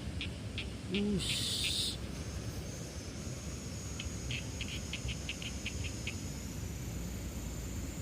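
Rice-paddy ambience: a run of quick high chirps, about five a second, from a small animal, a short low call and a brief hiss about a second in, then a thin steady high insect whine from about two seconds on.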